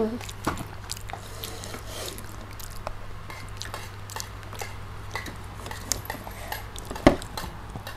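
Chewing of crispy fried chicken close to a clip-on microphone, with small clicks and crackles from fingers picking chicken and rice off plastic plates. A sharper knock about seven seconds in, and a steady low hum underneath.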